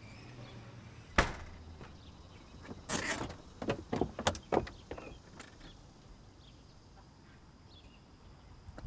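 A door clicks sharply about a second in, then a few irregular knocks and scuffs follow around three to four and a half seconds in.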